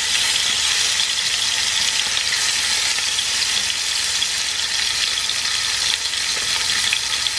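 Salmon fillets pan-frying in hot oil in a non-stick frying pan: a steady sizzle with fine crackling.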